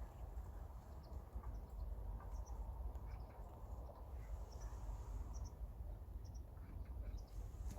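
Wind rumbling on the microphone, with a few faint, short high chirps of small birds scattered through it.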